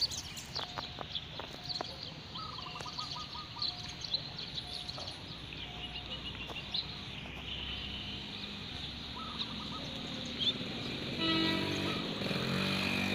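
Outdoor railway-platform ambience: small birds chirping in short repeated calls over a steady background hum, with the low hum growing louder about two-thirds of the way in and people's voices starting near the end.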